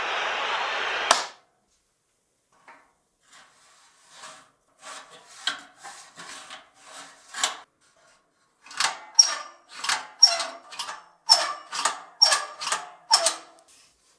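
A steady hiss that cuts off with a click about a second in, then scattered light knocks, then a quick run of about ten sharp knocks, roughly two a second, each with a short ringing note.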